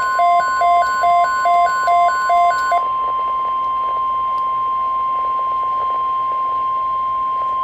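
Emergency alert tones: a steady, loud single-pitch warning tone, the NOAA Weather Radio 1050 Hz alert tone. For the first three seconds a beeping that alternates between two pitches, about two and a half times a second, plays over it, then stops.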